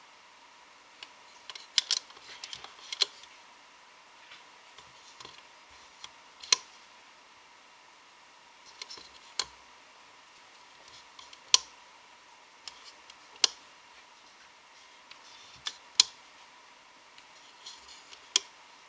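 Sharp, irregular clicks and taps of a clear plastic loom and rubber loom bands as the bands are stretched onto the loom's pegs. They come a second or a few apart, with a quick cluster about two seconds in, over a faint steady high hum.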